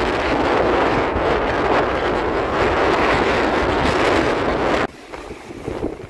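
Strong wind buffeting the microphone over waves washing and breaking onto a sandy beach. A little under five seconds in, the sound drops suddenly to a much quieter, gusty wind.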